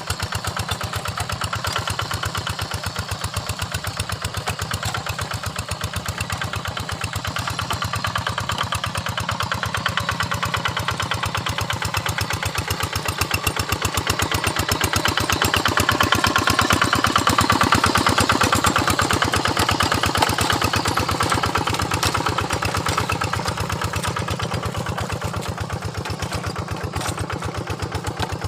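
Quik Impala hand tractor's single-cylinder Yanmar diesel engine chugging steadily while it tills a flooded paddy, growing louder a little past halfway and then easing off again.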